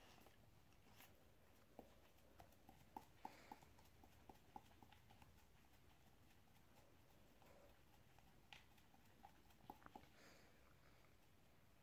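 Faint licking and nibbling of an Akita dog grooming its paw: quiet quick clicks and smacks in short runs, about a third of the way in and again near the end, over near-silent room tone.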